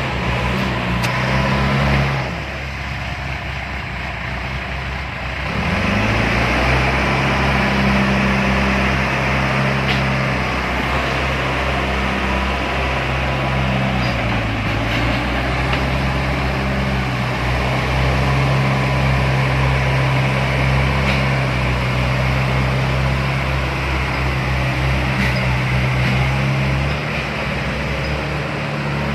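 Heavy diesel engine running steadily under load. It eases off for a few seconds near the start, then pulls again, with a brief dip in pitch about halfway through.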